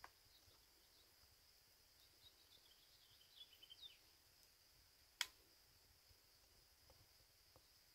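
Near silence in open country: a faint steady high-pitched tone, a few faint bird chirps about two to four seconds in, and a single sharp click a little after five seconds.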